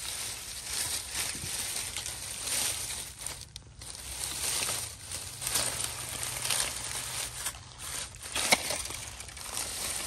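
Dry leaf litter and twigs crunching and rustling in irregular bursts.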